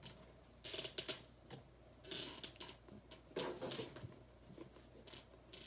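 Irregular clicks and rustles of a cardboard shoebox and its packaging being handled, in several short bursts.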